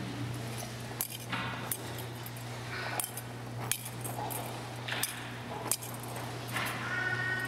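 Thurible swung in three double swings, its chains and metal censer clinking in pairs of sharp metallic clicks about every two seconds: the incensing of the Gospel book. A steady low hum runs underneath.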